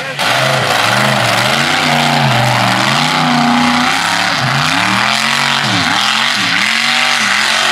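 Lifted mud truck's engine revving hard, its pitch rising and falling again and again as the throttle is worked, with several quick drops and rises near the end, over the hiss of tyres churning through mud.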